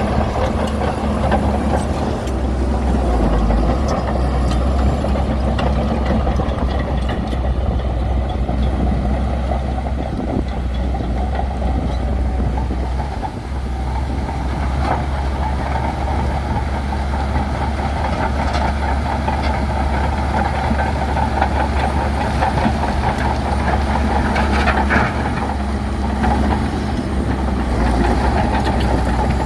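Bulldozer's diesel engine running steadily under load, a deep continuous rumble with scattered metallic clicks and clanks.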